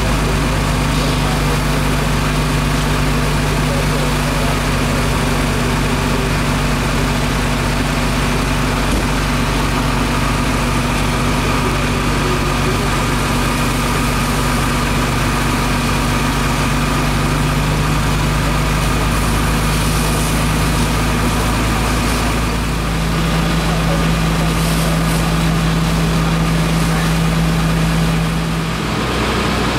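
Fire engine's engine running steadily to drive its pump, a constant low drone under the hiss of hose streams. The engine note steps up slightly about three-quarters of the way through.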